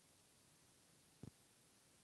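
Near silence: faint room hiss, with a single short, low thump just over a second in.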